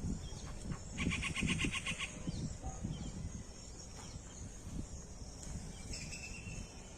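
A bird's rapid trilled call, about a second long, beginning about a second in, with a shorter call near the end and faint high chirping from other birds. Low irregular rumbles run under it.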